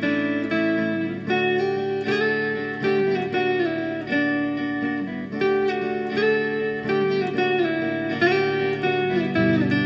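Background music: plucked guitar playing a melodic line, with notes changing every fraction of a second.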